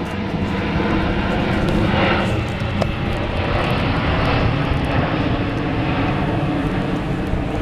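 Airboat's engine and large propeller running loud and steady, with a brief swell about two seconds in.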